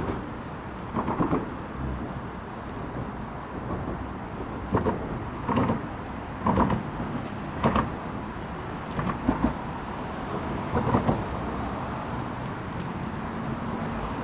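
Road traffic heard from under a bridge: a steady low rumble of passing cars, broken by about seven short thumps, most of them in quick pairs, as vehicles cross the bridge.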